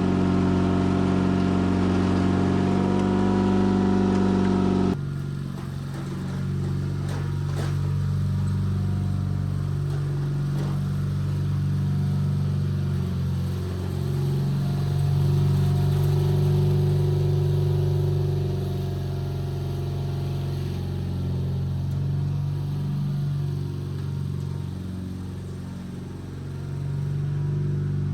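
Sears Craftsman FF24 garden tractor engine running steadily while the tractor pulls a 54-inch plow through dirt. The engine note changes abruptly about five seconds in, then swells and eases as the load varies.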